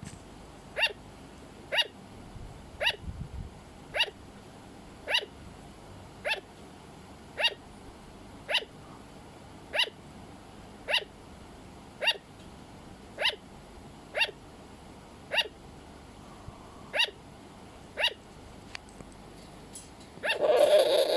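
Sugar glider barking: short, yappy calls that each drop slightly in pitch, repeated steadily about once a second, around sixteen times. Near the end a louder, rougher burst of noise cuts in.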